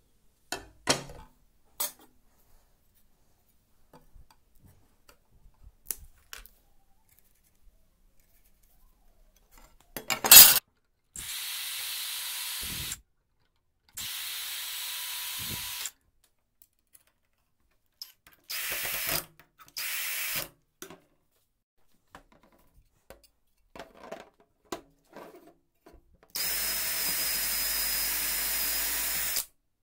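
Greenworks cordless drill running in short bursts as it bores holes into a pine block, then a longer run near the end as it drives a screw through the steel saw-blade piece into the wood. A few handling knocks come early, and one loud knock comes about ten seconds in.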